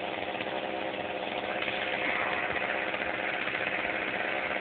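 An engine idling steadily, a constant low drone.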